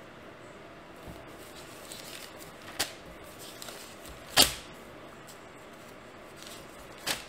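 Handling sounds at a desk: soft rustling and three sharp clicks or knocks, the loudest about midway, the last near the end.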